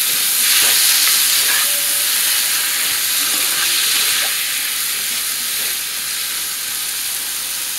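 Fried onion, diced tomatoes and curry powder sizzling in a non-stick frying pan while being stirred with a spatula. The sizzle eases a little in the second half.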